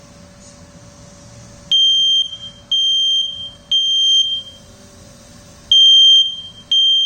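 Google Nest Protect smoke alarm sounding its emergency pattern: loud, high-pitched beeps in groups of three, with a short pause between the groups, starting about two seconds in. It is signalling smoke in the kitchen, set off by sausages cooking in an air fryer.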